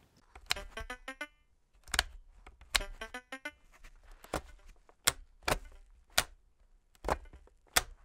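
LeapFrog Fridge Farm toy on nearly flat batteries (under 1 volt each) giving two short runs of rapid, stuttering electronic blips from its speaker, about half a second and two and a half seconds in: the starved circuit barely sounding. Sharp plastic clicks of the toy being handled and its buttons pressed come throughout.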